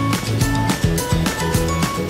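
Music with a steady beat and held notes.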